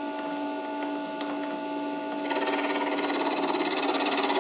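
Small salvaged dot-matrix-printer motor driving a 3D-printed lathe, running with a steady hum. A little over two seconds in, the filed silver-steel cutting tool bites into the spinning PLA pulley and a louder, fast-pulsing scraping joins the hum as the cut begins.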